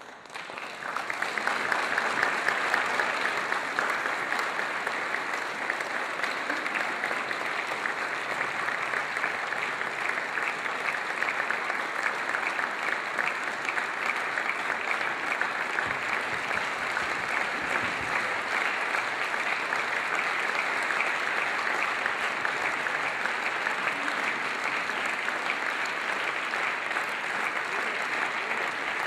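Audience applause, starting suddenly, building up within about a second and a half, then steady, dense clapping.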